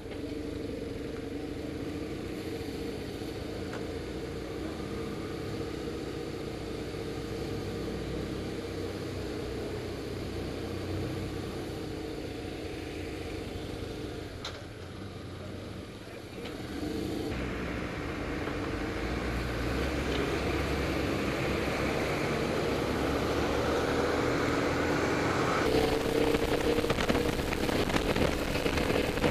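Motorcycle engine running at low road speed with a steady tone, easing off briefly about halfway through. It then grows louder and the rushing noise increases as the bike picks up speed in the second half.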